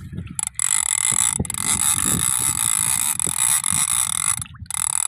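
Drag of a big-game lever-drag trolling reel buzzing as a hooked fish pulls line off. It is a steady high whine lasting about four seconds, with a brief break near the start, over a low rumble.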